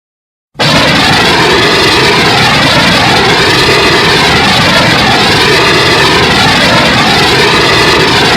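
Custom-made Burning Godzilla sound effect: a loud, dense rush of noise with swirling, jet-like sweeps running through it. It starts abruptly about half a second in and holds steady.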